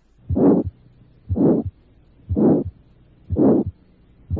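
Recorded heart sounds heard through a stethoscope at the second right intercostal space: a systolic ejection murmur that swells and fades with each beat, about once a second, four beats and the start of a fifth near the end, with quiet gaps between. It is the murmur of severe aortic stenosis, with the second heart sound absent.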